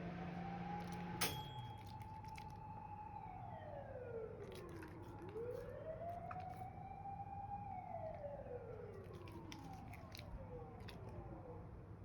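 Faint ambulance siren wailing, its pitch slowly rising, holding and falling twice over. A sharp click about a second in.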